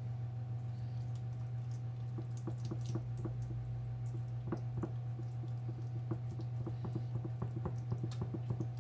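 Hand patting and smoothing raw meatloaf mixture into a glass baking dish: soft wet squishes and small taps at an uneven pace, over a steady low hum.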